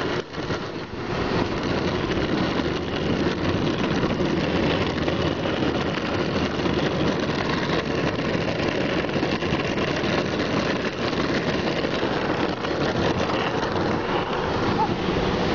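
Longboard's green urethane wheels rolling over coarse asphalt: a steady, loud, gritty rumble, dipping briefly just after the start.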